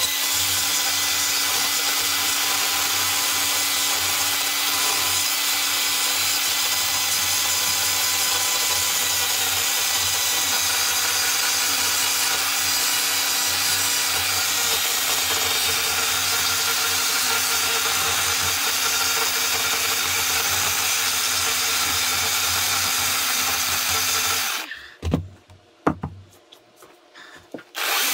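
Foredom flex-shaft rotary carving tool with a burr running steadily with a whine as it grinds wood. It stops about three-quarters of the way through, leaving a few knocks, and starts up again at the very end.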